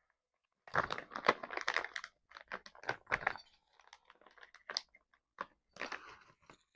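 Small metal tools clinking and rattling as hands sort through a set of Allen wrenches: a run of irregular clicks in short bursts with brief pauses.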